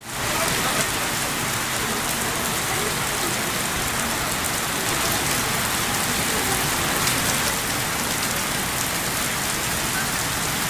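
Steady rain falling and pattering on surfaces, with scattered drop ticks.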